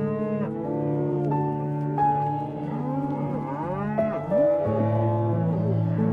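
Background music with steady held chords, with an animal's calls gliding up and down over them several times.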